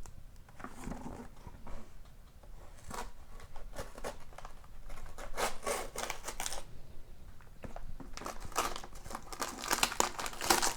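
Wrapping paper being torn and crinkled off a gift box in irregular rustling bursts, busier and louder in the last few seconds.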